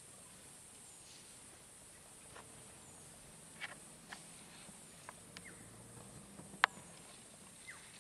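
Scattered sharp snaps and cracks of twigs and branches breaking as elephants walk and browse through dry bush, a few in the middle and the loudest about two-thirds of the way in.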